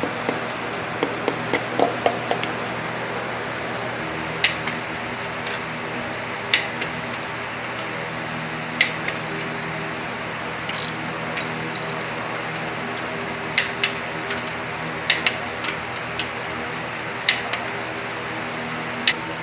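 Sharp metallic clinks of tools and engine parts being handled, a few seconds apart, over a steady machine hum.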